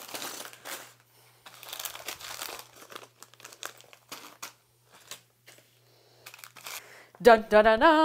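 Clear plastic bags of small building-brick pieces crinkling and rustling as they are picked up and set down, in a few bursts that thin out after the first three seconds. Near the end a woman sings a short 'dun-dun-dun-dun' fanfare, the loudest sound here.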